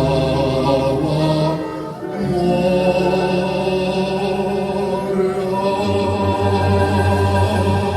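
Closing bars of a song: long sustained sung notes over accompaniment, the chord changing about two seconds in and again near the end as the song draws to its close.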